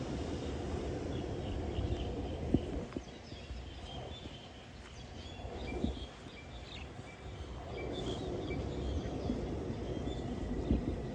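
Small birds chirping and twittering over the low rumble of passing road traffic, which swells, dies down and swells again. A few sharp clicks stand out.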